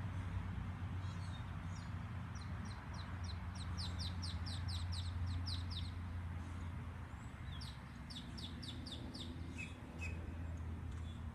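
A songbird singing two runs of quick, high, downward-sweeping notes, about five a second, over a steady low hum.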